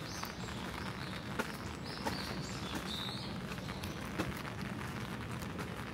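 A bird chirping a string of short high notes during the first half, over a steady hiss of rain, with a few sharp light taps.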